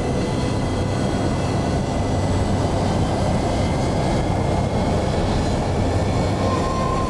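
Cargo aircraft's engines running steadily, heard from inside the plane's glazed nose as it moves along the runway. A brief high tone sounds near the end.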